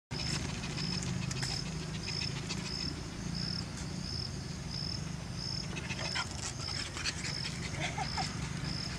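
Outdoor ambience: an insect chirping in a steady, even rhythm of about two high chirps a second over a low steady hum, with a few faint clicks and short squeaks.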